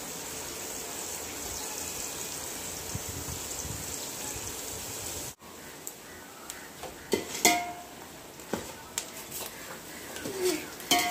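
Sliced onions frying in oil in a stainless steel pot over a wood fire, a steady sizzling hiss as they cook down toward golden brown. About five seconds in the sound cuts, then a steel ladle stirs the onions, clinking and scraping against the pot several times.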